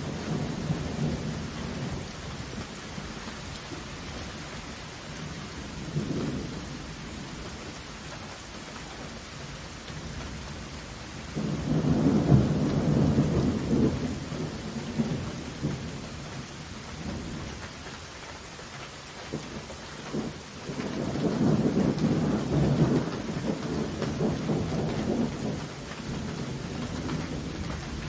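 Heavy thunderstorm: steady rain hissing throughout, with thunder rumbling up twice, about twelve seconds in and again about twenty-one seconds in, each rumble lasting a few seconds.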